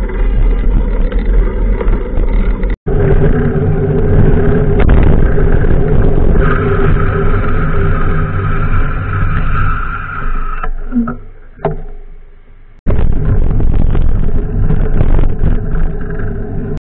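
Street traffic noise and steady riding rumble picked up by a camera on a moving bicycle among cars. It briefly drops out about three seconds in, goes quieter for a couple of seconds past the middle, then jumps back loud.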